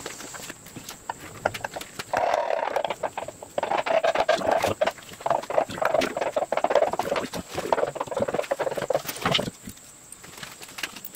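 Rapid, irregular hammer taps on the metal front timing cover of a Jaguar 2.4-litre engine as it is driven into place. The tapping starts about two seconds in and stops a little before the end.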